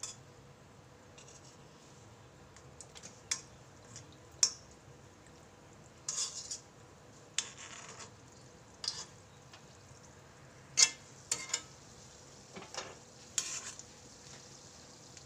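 Metal spoon scraping and clicking against an iron kadhai at irregular moments while it turns dough balls frying in ghee, over a faint steady sizzle.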